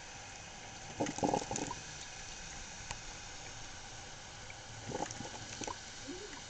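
Black & Decker thermal carafe drip coffee maker partway through its brew cycle, heating water and pushing it up to the filter basket: a steady hiss broken twice by short bursts of gurgling sputter, about a second in and again about five seconds in.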